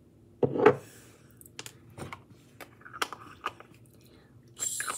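Small mouth and lip sounds from a hard honeycomb lip-mask applicator pressed and worked against the lips: one short loud sound about half a second in, then a few small scattered clicks. A rustling hiss follows near the end.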